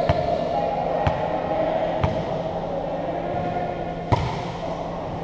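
A volleyball bounced on the court floor three times, about a second apart, then a single sharp slap of a hand striking it on the serve about four seconds in.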